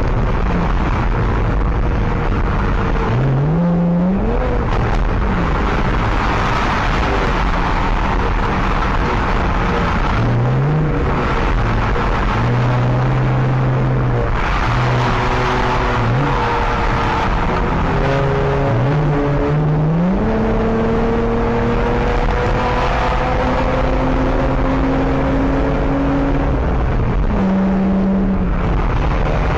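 Hellcat-swapped Nissan Altima's supercharged V8 pulling at highway speed, heard over road and wind noise. Its engine note holds steady or drifts, then climbs sharply about four times as the car slows and speeds up through traffic.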